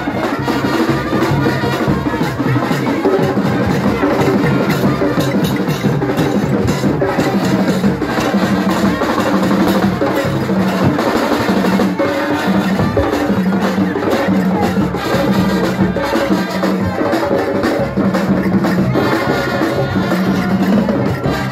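Live highlife band playing: drums and percussion keep a steady groove while a repeating held-note riff, likely from the horns, recurs every second or so.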